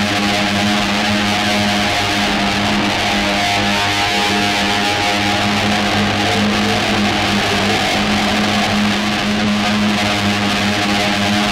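Music: a dense, steady guitar drone holding one low note under a thick noisy wash. It cuts off abruptly at the end.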